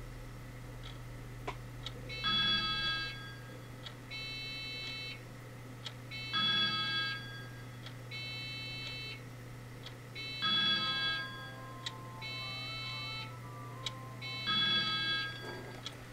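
Electronic melody of steady beeping tones in a repeating pattern, a new phrase about every two seconds, like a ringtone or simple synthesized tune, over a steady low hum.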